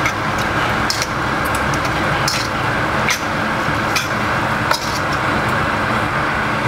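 A metal utensil clinks and scrapes against a stainless steel frying pan about once a second as pasta is tossed. Underneath is a steady rushing noise with a low hum.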